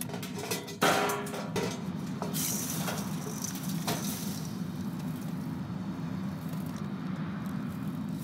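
Molten bronze poured from a crucible into a hot ceramic shell mold. Clinks and knocks of the crucible and tongs come about a second in, then a brief hiss before the pour, all over a steady low rumble.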